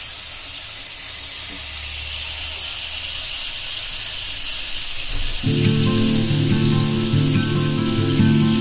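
Marinated chicken drumsticks sizzling as they fry in oil and butter in a pan, a steady hiss. Background music comes in about five seconds in.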